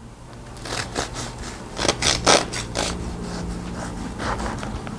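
Serrated bread knife sawing through a loaf of spice bun, a series of short back-and-forth scraping strokes, busiest in the first three seconds and lighter toward the end.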